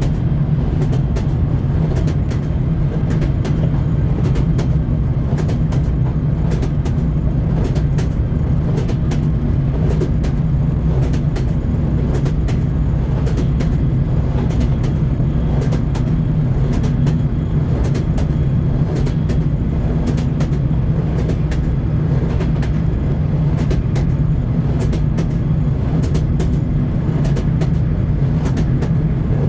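Train wheels clacking over rail joints, sharp knocks about one to two a second over the steady low rumble of a moving railway carriage.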